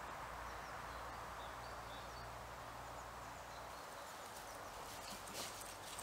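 Faint outdoor ambience: a steady hiss with a few small bird chirps in the first couple of seconds. About two-thirds through, crisp footsteps in dry grass begin as a person and a small dog walk closer.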